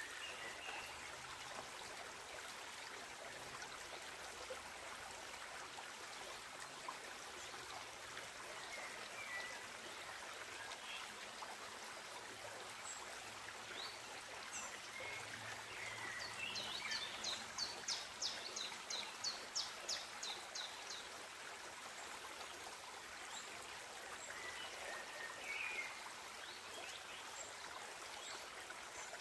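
A small forest creek flowing over rocks, a steady babble. Birds chirp now and then, and about two-thirds of the way through a rapid run of high notes, around four a second, lasts about four seconds.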